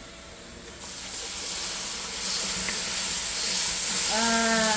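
Curry seasoning frying in hot oil in a cooking pan, sizzling. The sizzle comes in about a second in and grows louder.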